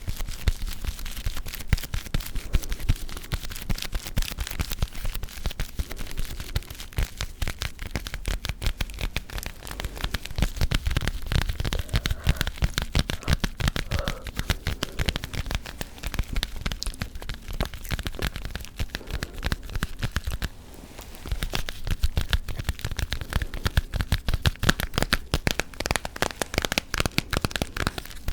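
Close-miked ASMR gum chewing and tapping: a dense run of rapid clicks and crackles, with a short lull about twenty seconds in.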